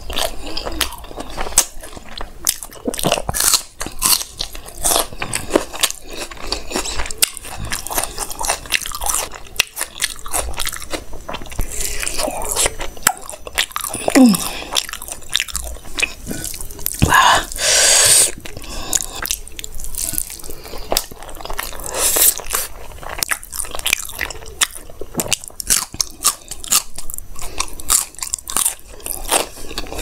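Close-miked chewing and biting of hand-fed mouthfuls of rice with chickpea curry, made up of many small mouth clicks and crunches. A brief, louder rush of noise comes a little past halfway.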